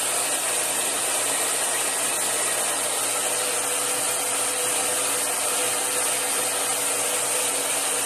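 Handheld hair dryer running steadily while drying long hair: a constant rush of air over a steady motor hum.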